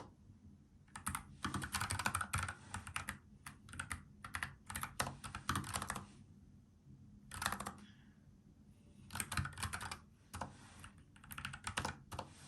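Typing on a NuPhy Air75 low-profile mechanical keyboard with brown tactile switches: quick runs of keystrokes in bursts, broken by short pauses of about a second.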